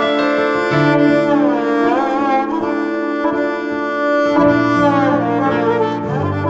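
Instrumental music: a slow melody with sliding notes over held low notes.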